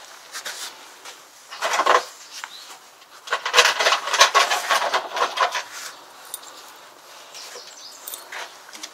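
Rustling and light clattering from someone handling things close by. The noise comes in two louder stretches, a short one just before two seconds in and a longer one of about two seconds from three and a half seconds in, with a few sharp ticks.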